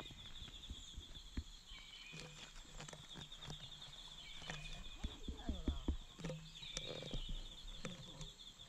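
Folding camp chair being set up by hand: the seat fabric rustling and the frame poles clicking and knocking as they are fitted into the seat, with the busiest handling about five to six seconds in. A steady high trill runs underneath.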